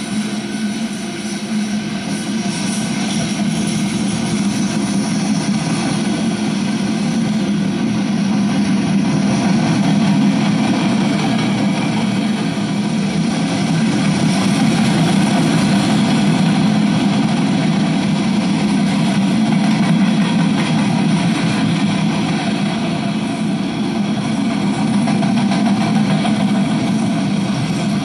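Freight cars rolling past close by, a steady rumble of steel wheels on rail that swells slightly a few seconds in. The passing cars are covered hoppers and autorack cars.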